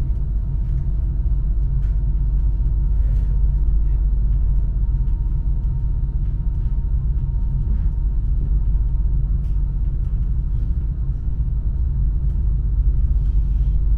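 Passenger train running at steady speed, heard from on board: a constant low rumble with a few faint steady hum tones over it and occasional light clicks.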